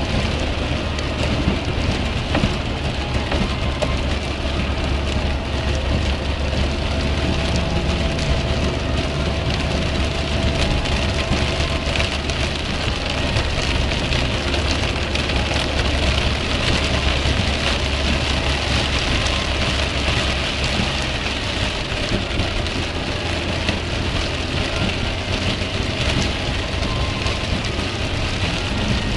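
Heavy rain hitting a car's windscreen and body, heard from inside the cabin while driving on a wet motorway, over a steady low drone of engine and tyres on the wet road.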